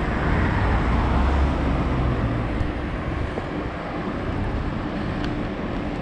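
Cars passing on a town street: tyre and engine noise, a little louder in the first couple of seconds.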